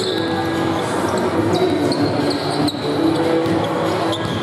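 Several basketballs being dribbled on a hardwood gym floor, irregular overlapping bounces echoing in a large gym.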